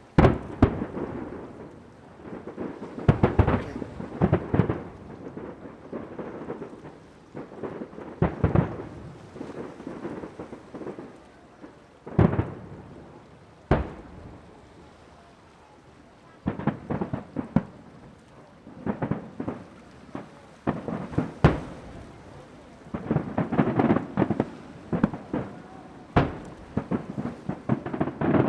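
Aerial firework shells bursting in quick clusters: repeated booms and sharp cracks, each trailing off in a deep rumble, with short lulls between volleys.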